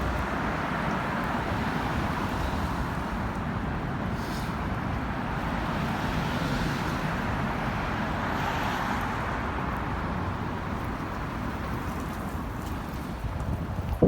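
Steady city street traffic noise: a continuous rumble and hiss of passing vehicles.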